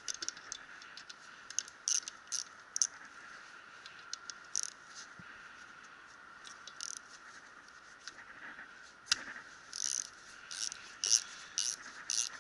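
Hand socket ratchet clicking in short bursts of back-strokes as bolts on a differential housing are turned. The bursts are scattered at first, then fall into a quicker, steady rhythm of about two strokes a second near the end.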